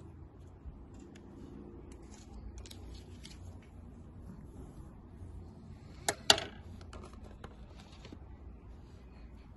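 Faint handling sounds of cotton buds being pressed onto card, soft ticks and rustles, with two sharp clicks in quick succession about six seconds in.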